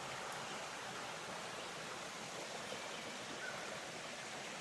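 Steady rush of creek water flowing, an even hiss without breaks.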